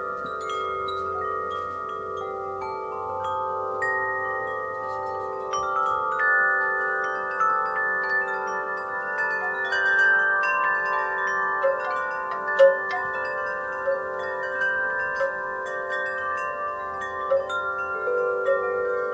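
Metal wind chimes ringing in the breeze, many tuned tones struck at random and overlapping as they sustain and slowly fade, with a few louder strikes about halfway through.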